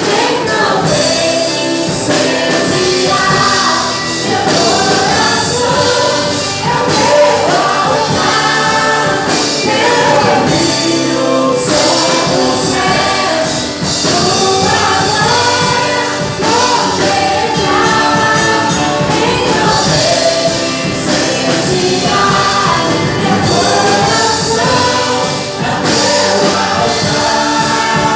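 Gospel worship song with a choir singing over a full band, tambourine among the instruments.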